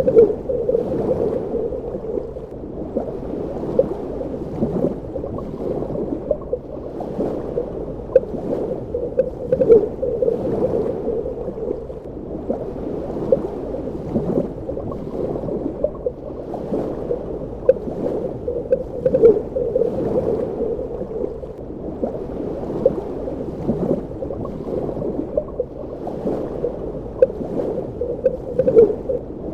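Underwater ambience: a steady, muffled wash of water with irregular gurgling bubbles popping every second or so.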